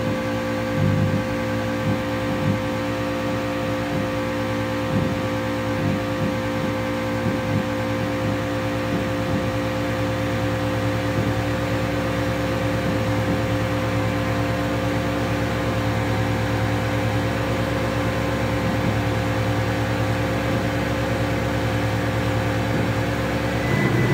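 Homemade light-responsive oscillator synthesizer droning: a dense stack of steady electronic tones with irregular stuttering clicks through the first half, and the pitches starting to bend and slide right at the end.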